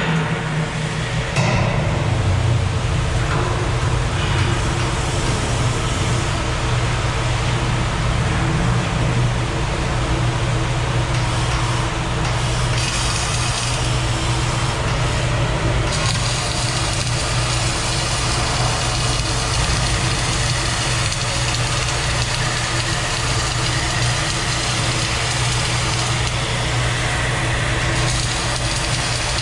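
Arc welding in the overhead fillet (4F) position: a steady arc hiss that shifts slightly in its highest part a few times, over a strong, constant low hum of machinery.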